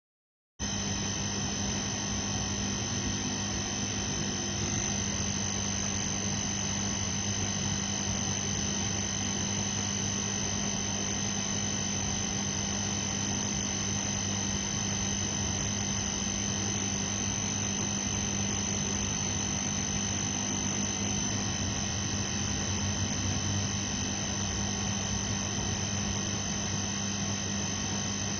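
Fluorescent light buzzing with a steady electrical mains hum, a low drone with a faint high whine above it, starting about half a second in and holding unchanged.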